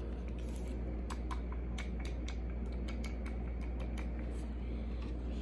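Handling noise from a handheld karaoke microphone: irregular clicks and taps of fingers on its body, over a steady low hum.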